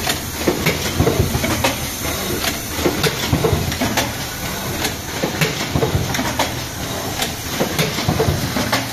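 Automatic card hot-stamping machine running: a steady mechanical rumble and hiss with frequent, irregular clicks and clacks.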